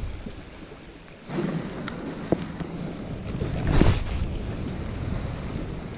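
Wind on the microphone over gentle sea washing around rocks at the shoreline, with a few small clicks and a brief louder rush about four seconds in.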